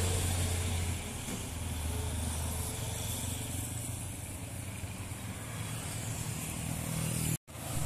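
Engine of a flatbed truck pulling up a steep climb as it passes close, fading about a second in, followed by the steady engine hum of further trucks and a bus climbing, with a motorcycle passing near. The sound cuts off suddenly near the end.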